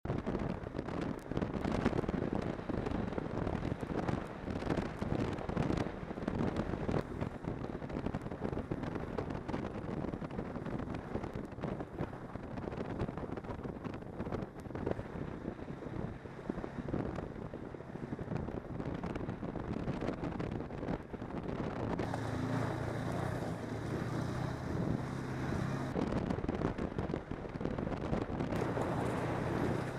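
Snowmobile running along a snow trail at speed, its engine drone mixed with wind buffeting the camera's microphone. The engine note stands out more clearly for a few seconds past the middle.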